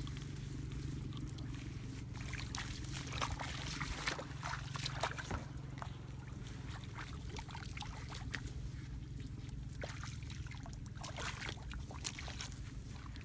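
Irregular splashing and sloshing of shallow muddy water as someone wades at a pond's edge, over a steady low hum.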